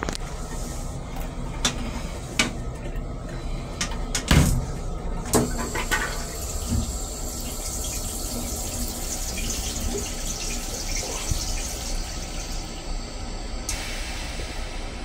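Stainless steel railcar toilet flushing: a sharp clunk about four seconds in, then a steady hiss of rinse water washing the bowl for several seconds, over a steady low rumble.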